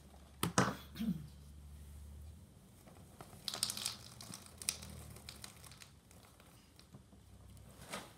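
Cereal packaging crinkling and rustling in a few short bursts, with light clicks and knocks as it is handled.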